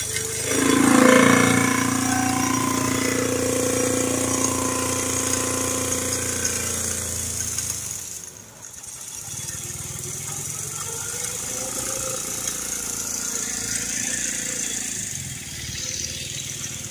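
An engine revs up about a second in and then runs steadily. After a short drop near the middle it carries on more quietly, its pitch rising and falling a little, over a steady hiss.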